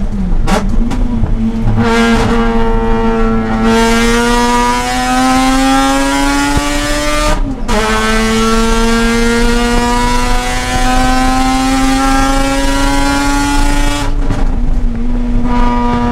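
Mazda RX-8's two-rotor rotary engine accelerating hard, its pitch climbing steadily, breaking off briefly for an upshift about halfway through, then climbing again. Near the start and again near the end the pitch drops and settles as the throttle eases.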